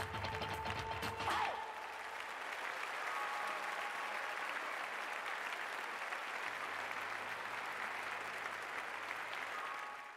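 Show music ends on a final hit about a second and a half in, then a theatre audience applauds steadily. The applause falls off at the very end.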